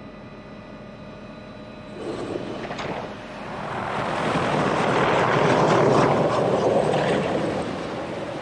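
MD 500 helicopter: a steady, even drone, then about two seconds in the loud rush and chop of its rotors as it lifts off close by and passes overhead, building to a peak and then fading.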